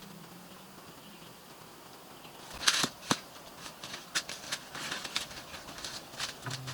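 A string of short crackles and rustles, like dry material being handled, begins a few seconds in. The loudest burst comes first, then a sharp click, then smaller crackles.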